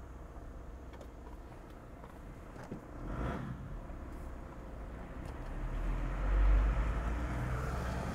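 Toyota Land Cruiser 100's 1HD-FTE straight-six turbo-diesel engine and road noise heard from inside the cabin while driving, a steady low rumble that swells in loudness about six seconds in.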